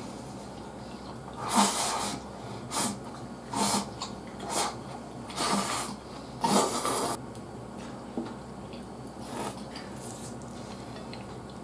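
Close-up mouth sounds of a person eating mapo glass noodles with chopsticks: a run of about six loud slurps and sucks in the first seven seconds, then a couple of fainter ones.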